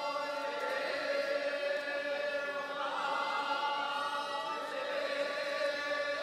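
Several voices chanting together in long, held, slowly wavering tones, steady throughout.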